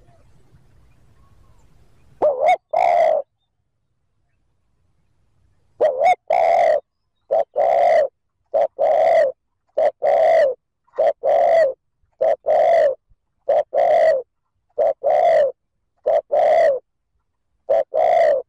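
Spotted dove cooing: one coo phrase about two seconds in, then from about six seconds a rapid run of short-then-long coos, roughly one pair a second. This is the fast 'thúc gù' coo of a decoy dove, used as a lure call to rouse wild males.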